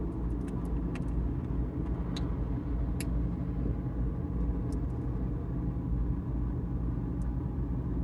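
Light clicks and taps of small resin keycaps and a silicone mold being handled, a few sharper ones in the first three seconds, over a steady low machine hum.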